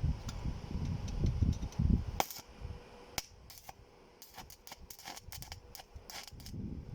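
Low rumbling handling noise for about two seconds, then a run of sharp, irregular clicks and knocks, the loudest about three seconds in, as of metal tool and part work on a tiller.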